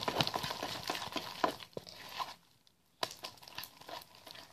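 Quick, irregular crackling and clicking as sticky glue-and-detergent slime is worked by hand. The sound stops for a moment just past halfway, then resumes more sparsely.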